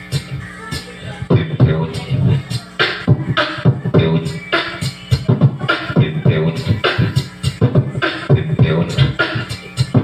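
Beatboxing into a cupped handheld microphone: a fast, steady beat of mouth-made drum sounds with deep bass hits.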